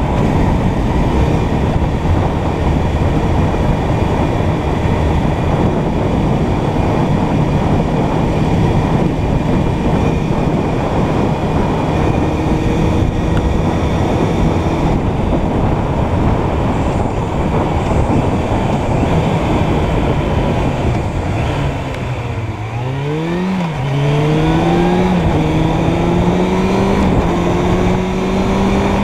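Suzuki Bandit 600's inline-four engine running at a steady cruise under heavy wind and road rush. About 22 seconds in the engine note drops back, then climbs in several stepped rises as the bike accelerates up through the gears.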